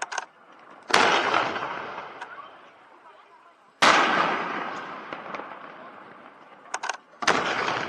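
Aerial firework shells bursting: three loud booms about one, four and seven seconds in, each dying away in a long rolling echo, with a few quick sharp cracks in between.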